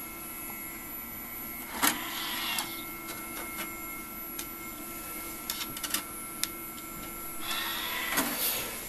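SGI O2 workstation's CD-ROM drive whirring as it spins and reads a disc, over a steady machine hum, with a few sharp clicks about two seconds in and again around six seconds.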